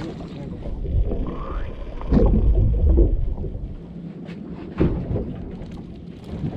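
Low rumbling on a small boat, broken by several knocks and thuds, with a short rising squeak about a second in.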